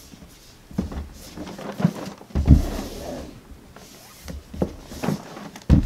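Cardboard board-game box turned over in the hands: scattered light knocks and rubbing of card, with a firmer thump about two and a half seconds in and another near the end.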